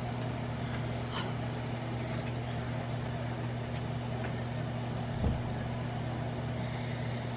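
Steady low electrical hum of the room, unchanging throughout, with a single dull low thump about five seconds in as the camera is handled.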